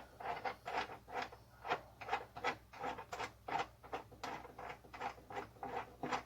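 Quick, even back-and-forth scraping strokes of a hand tool working the wood of a subwoofer box, about three a second.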